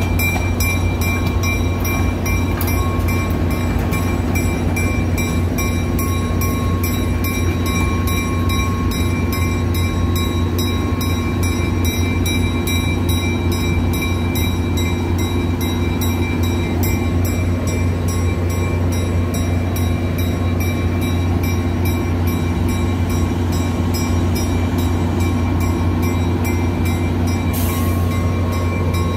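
Diesel locomotive engine running with a steady, constant low drone as it slowly pulls a string of passenger coaches along yard track.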